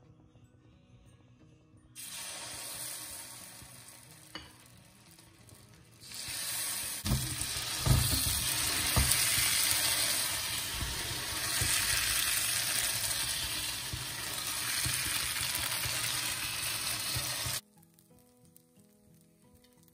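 Appam batter sizzling in a hot cast-iron appam pan. It starts as the batter goes in, then grows louder and denser as the pan is tilted and swirled to spread it. There are a few low knocks about seven to nine seconds in, and the sizzle cuts off suddenly near the end.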